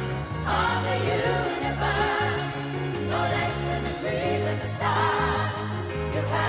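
Background song with singing voices over a steady bass line.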